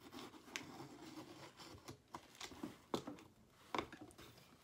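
Knife blade cutting through a cardboard box: a faint scratchy scraping for the first two seconds or so, then a few sharp clicks and taps as the cardboard is worked.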